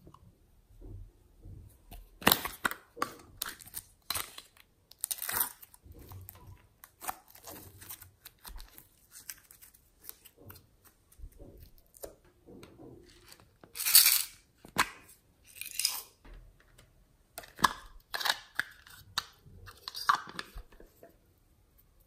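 Glossy slime being handled and dropped into a glass tray: irregular sticky squelches, crackles and smacks, a few of them much louder than the rest.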